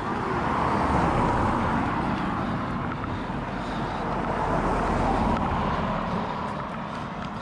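Road traffic: cars passing on a road, a steady rush of tyre and engine noise that swells twice and then eases off.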